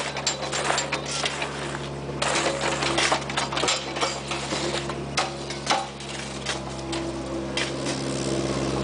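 Mini excavator's diesel engine running steadily, overlaid by hand shovels and rakes scraping and crunching on gravelly ground in quick, irregular strokes.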